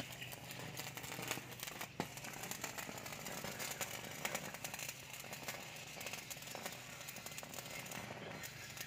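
Electric arc from an inverter stick welder crackling steadily as the electrode burns into steel rebar to cut it, over a low steady hum. One sharp snap about two seconds in.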